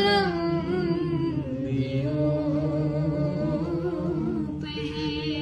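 A voice singing an Urdu devotional kalam, drawing one word out into a long, wavering held note over a steady low hum, with a higher wavering line coming in near the end.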